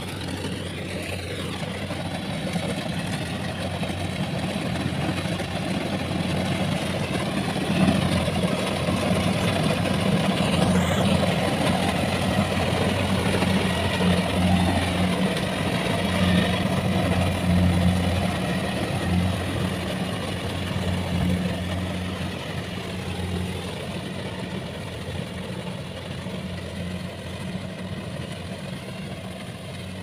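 Kubota rice combine harvester's diesel engine running steadily with a low hum while it cuts rice. It grows louder about a third of the way in, then slowly fades.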